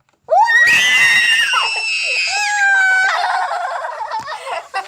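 Children screaming in high, shrill voices: two long held screams, the second lower, then a jumble of shorter shrieks and squeals from about three seconds in, as the Mentos go into the cola.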